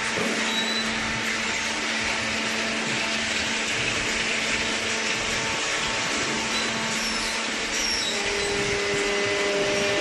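Steady whirring noise of industrial machinery running in a waste-paper baling plant, with a faint steady hum underneath.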